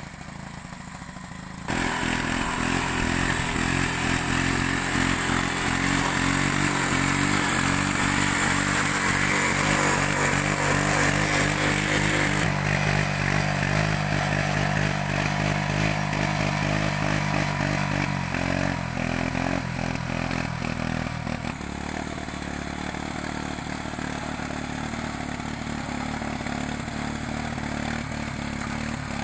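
Motorbike petrol engine on a homemade walk-behind hand tractor running steadily under load as it works through wet mud. It gets abruptly louder about two seconds in and eases off a little about twenty seconds later.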